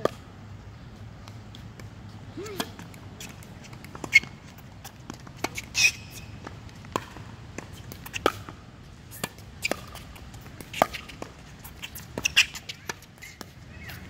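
Tennis rally on a hard court: irregular sharp pops of racket strings striking the ball, the loudest from the near player, with ball bounces and a few short sneaker squeaks between them.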